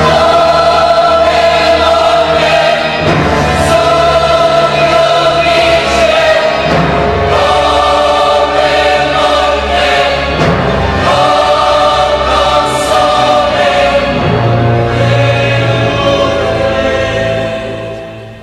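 Choir singing a slow requiem over orchestral accompaniment, with sustained chords and heavy drum strokes every few seconds. It dies away near the end.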